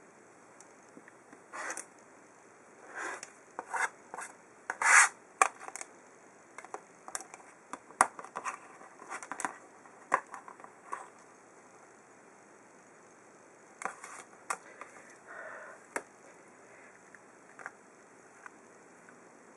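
Rotary cutter and acrylic ruler working on a cutting mat: short scraping, rubbing strokes as small fabric triangles are trimmed to size and the ruler is shifted. The strokes come in clusters with pauses between, and the loudest falls about five seconds in.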